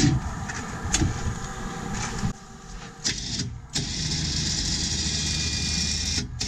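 Electric winch on the front of a golf cart, worked from a wired hand control, running in two spells: about two seconds, a pause with a few sharp clicks, then a steady run of about two and a half seconds that stops near the end.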